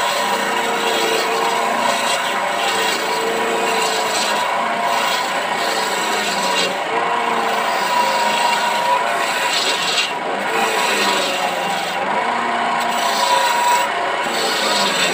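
Electric wood lathe spinning a teak table leg, with a steady rubbing, scraping noise as a hand-held tool works the left end of the turning wood, over the hum of the lathe's motor.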